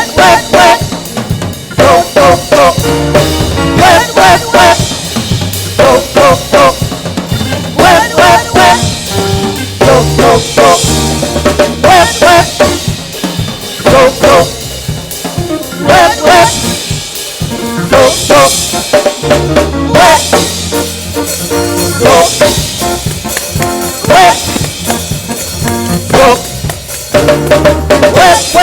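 Gospel praise band playing an instrumental groove, the drum kit in front with frequent snare and rimshot hits and bass drum, over held keyboard or guitar notes and a low bass line.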